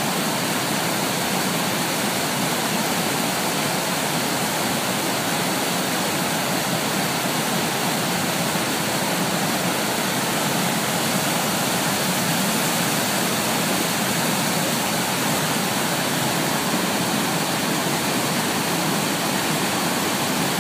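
Water pouring through opened dam floodgates and spilling over the spillway, a steady, unbroken rush.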